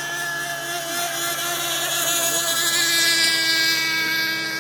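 High-pitched motor whine of racing radio-controlled model boats. It swells to its loudest a little past the middle, as a boat runs close, then eases off.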